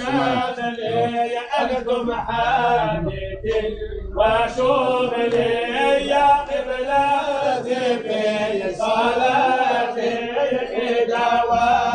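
Group of men chanting a Sufi devotional chant together, with long held notes.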